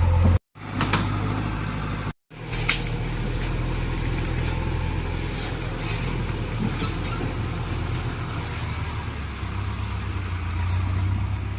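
Vehicle engine running steadily with a low hum. It is interrupted twice near the start by brief dead silences, each followed by a sharp click.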